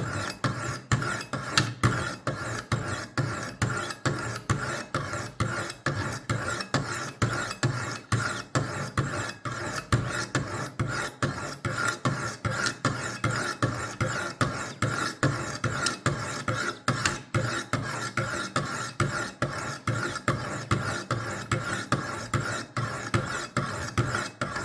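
Coarse 200 grit diamond stones of a Wicked Edge guided sharpener scraping back and forth along a steel knife edge in even strokes, about two or three a second. The stones are grinding a new bevel on a completely blunt blade to raise a burr.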